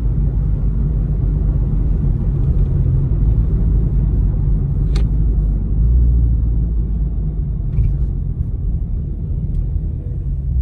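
2018 Dodge Charger R/T's 5.7-litre Hemi V8 under way at speed, a steady low drone of engine, exhaust and road noise heard from inside the car. A sharp click sounds about five seconds in.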